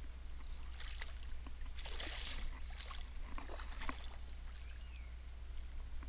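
Hooked peacock bass thrashing and splashing at the water's surface beside a kayak, with the biggest bursts of splashing about one second and about two seconds in.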